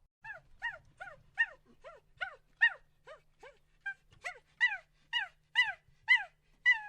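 A dog whimpering and yipping: a quick series of short, high, falling cries, about two a second.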